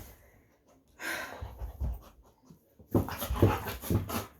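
Dog panting in quick, even breaths that start about three seconds in, after a near-silent pause broken by a brief soft noise; she is breathing hard from rough-and-tumble play.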